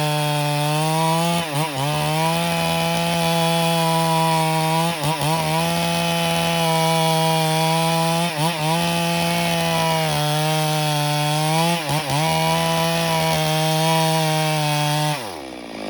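Stihl MS382 two-stroke chainsaw running at high revs while cutting wood. The engine note dips briefly about every three and a half seconds. Near the end the revs fall away to idle.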